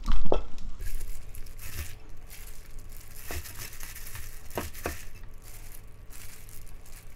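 Crinkling of a clear plastic disposable glove and the wet squish of dressed cockle salad as a hand tosses and scoops it in a stainless steel bowl, loudest right at the start, with a few light clicks.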